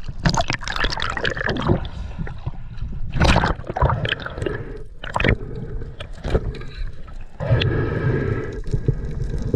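Sea water splashing and gurgling around a camera as it goes from the surface to underwater, then irregular underwater bubbling and water noise as the diver swims down, with a denser burst of bubbling near the end.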